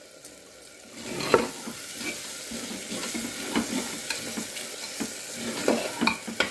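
Metal ladle stirring and scraping thick onion-tomato masala frying in a pressure cooker, the masala sizzling as it is sautéed with the spices; the stirring starts about a second in with a sharp knock of the ladle, then goes on with repeated scrapes and clinks.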